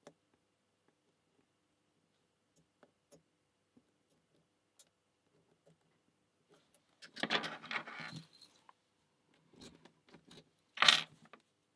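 Lock picks and a tension wrench working in a brass padlock: small scattered metal clicks, then a short bout of metallic rattling about seven seconds in, and one sharper jangle near the end.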